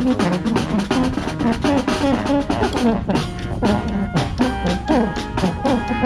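Brass street band playing: trumpets, trombones and sousaphone over a steady marching-drum beat, with sliding horn notes near the middle.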